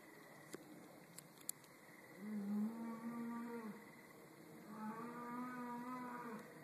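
A distant cow mooing: two long, steady moos, one starting about two seconds in and the other near five seconds, each held about a second and a half. A few small clicks come before them.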